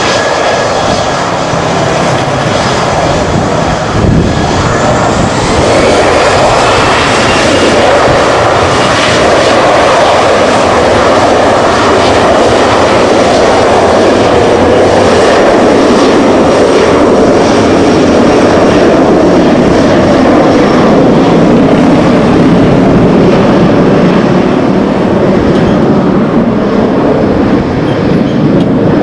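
Boeing 737-500 with twin CFM56-3 turbofans running loud and steady on its take-off roll, with a whine that rises in pitch about five seconds in.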